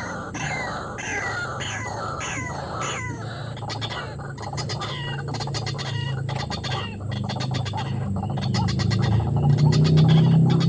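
White-breasted waterhen (ruak-ruak) calling: a run of quick calls falling in pitch, about two a second, which then turn fainter and more clicky. A low steady hum grows louder near the end.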